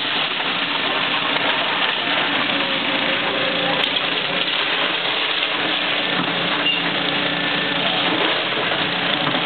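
Caterpillar hydraulic excavator's diesel engine running steadily under a continuous hiss of water spraying from a hose onto demolition debris.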